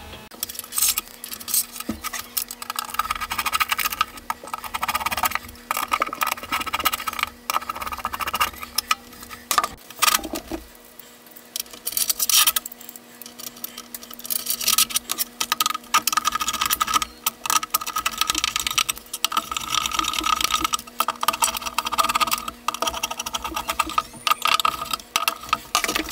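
Metal workholding parts (clamps, aluminium T-nuts, screws and a 1-2-3 block) clinking, rattling and scraping on a metal T-slot table in irregular bursts as a casting is clamped down, over a steady low hum.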